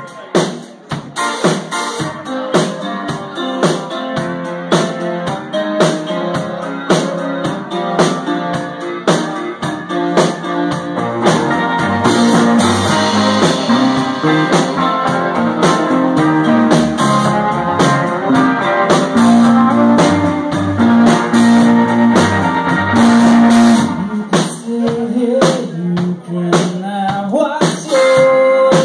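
A live band plays with electric guitar over a steady drum beat. About eleven seconds in, the band grows fuller and louder with deep bass. It thins out for a few seconds near the end, then comes back in.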